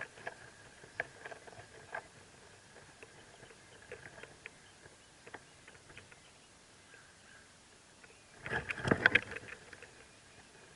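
Rustling and scratching in a mockingbird nest: scattered light clicks, then a louder burst of scratchy rustling about nine seconds in. A faint steady high tone runs underneath.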